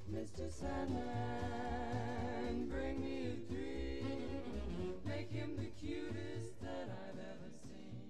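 Background music: a group of voices singing in close harmony over a bass line.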